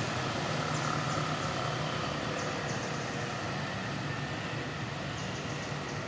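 Steady background rumble and hiss with a faint low hum, unchanging throughout.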